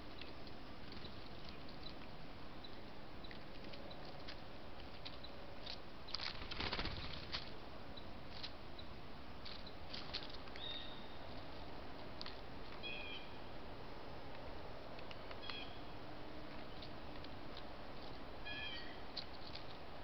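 Small birds at a seed feeder over a steady hiss: a brief flutter of wingbeats about six seconds in, scattered sharp pecking taps, and a few short, high call notes, the last a quick falling series near the end.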